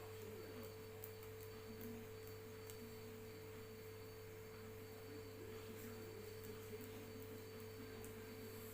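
Faint steady background hum with a constant mid-pitched tone, with no loud crack.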